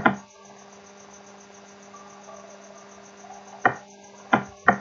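Computer mouse clicks: one at the start and three more in quick succession near the end, over a steady low electrical hum.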